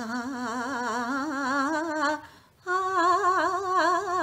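A woman singing alone on an open vowel, shaking the note in quick waves in the Natyasangeet manner: the gandhar (ga) swung with touches of re and pa, in raga Hansadhwani. Two phrases with a short breath about two seconds in, the second starting higher and stepping down.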